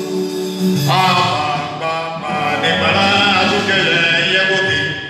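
Voices singing a church hymn together, with long held notes that change pitch about once a second.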